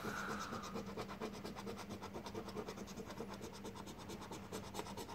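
A coin scratching the coating off a lottery scratch ticket in quick, repeated short strokes.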